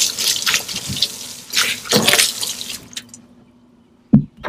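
A garden hose spraying a stream of water onto a fiberglass boat deck, with a hissing splash. The spray swells once, then fades and stops about three seconds in. A short low thump follows near the end.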